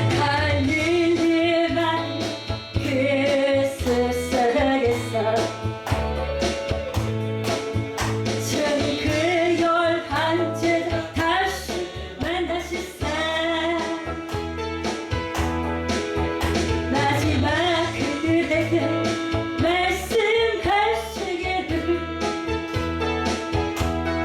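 Music: a woman singing a Korean worship song over instrumental accompaniment with a steady bass line.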